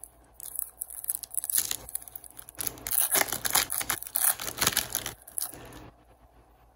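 Foil wrapper of an Upper Deck hockey card pack being torn open and crinkled: a run of crackly rips and rustles lasting about five seconds.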